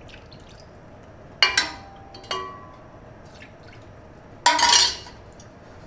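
Steel ladle clinking against a stainless steel pot: two sharp ringing clinks about a second and a half in, and a lighter one shortly after. Near the end, a short splash of chicken stock poured from the ladle into the skillet of rice.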